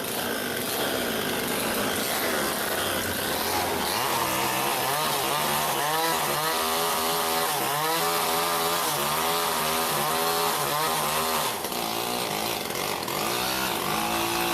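STIHL chainsaw running hard while cutting wood, its engine pitch dipping and recovering over and over as the chain loads up in the cut.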